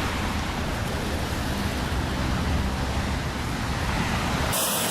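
Steady roar of road traffic with a low rumble of wind on the microphone. Near the end it cuts abruptly to a brighter hiss with a thin steady tone.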